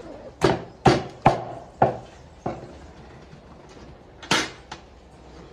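A knife chopping through raw meat onto a wooden cutting board: five sharp chops in the first two and a half seconds, then a louder double knock a little past four seconds.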